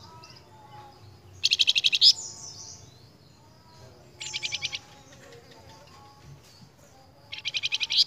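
Flamboyan songbird singing: three short, loud, rapid trills about three seconds apart, with soft whistles and twittering between them.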